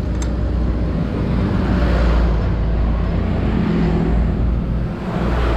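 Motorbike engine running close by, with a steady low hum that swells about two seconds in and again near the end, just refuelled after running out of petrol.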